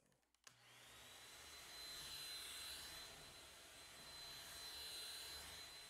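Cordless stick vacuum switching on about half a second in, its motor spinning up to a steady run with a high whine.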